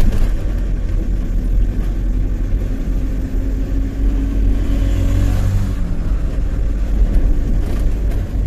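Tata 1512 truck's diesel engine running steadily on the move, heard from inside the cab: a constant low rumble mixed with road noise.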